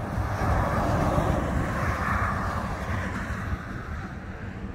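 A vehicle passing: a rushing noise that swells to a peak about two seconds in and then fades, with wind buffeting the microphone.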